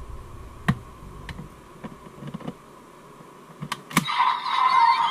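Plastic clicks and rattles of a DX Desire Driver toy belt being handled as a Raise Buckle is fitted into its slot, ending in a loud snap about four seconds in. Right after the snap the belt's speaker starts an electronic sound effect with steady and gliding tones.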